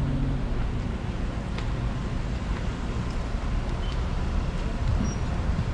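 Wind buffeting the action camera's microphone: a steady low rumble over faint outdoor background noise.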